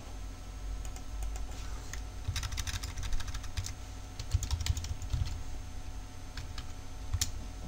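Computer keyboard being typed on in two short runs of key clicks, then a single click near the end.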